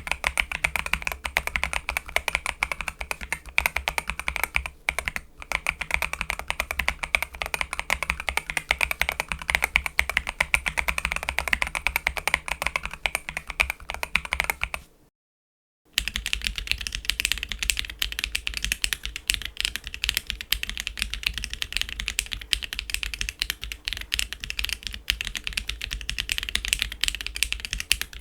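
Fast typing on a mechanical keyboard fitted with CIY Evo Purple S switches: a dense run of keystroke clacks, a sentence being typed. About halfway there is a brief pause, after which the typing resumes with a brighter, thinner tone, as on a second keyboard build.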